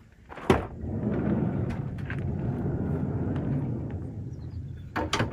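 Sliding side door of a Pleasure-Way Plateau camper van unlatching with a sharp click, then rumbling along its track for a few seconds as it is pushed open, with a couple of clicks near the end.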